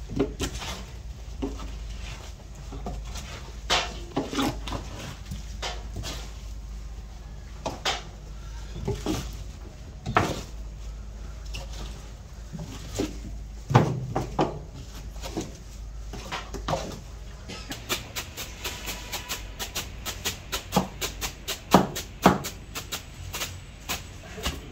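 Chopped onions being handled and turned in a large trough, with scattered knocks and scrapes. For the last several seconds this gives way to a quick, steady run of chopping strikes as a blade works through the onions.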